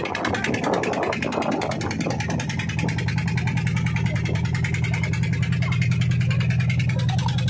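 Motorboat engine running steadily under way, a low drone with a fast even pulse that comes through clearly about two seconds in, after a rushing noise at the start.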